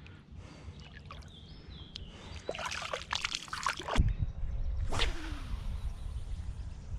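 Water splashing and sloshing as an asp is released back into the water by hand. The splashing builds over a couple of seconds and is sharpest about four seconds in.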